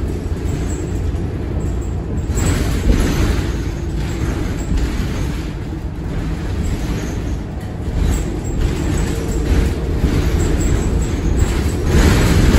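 Inside a New Flyer XD40 diesel transit bus under way: a steady heavy low rumble of engine and road noise, with swells of hiss a couple of seconds in and again near the end.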